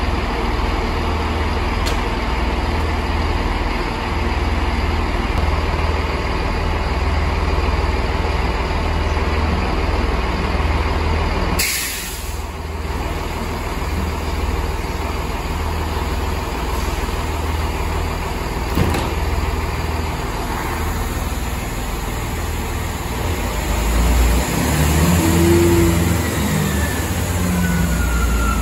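Chiltern Railways diesel multiple unit idling at the platform, a steady low engine rumble. About twelve seconds in there is a sudden hiss of released air, and the engine gets louder near the end.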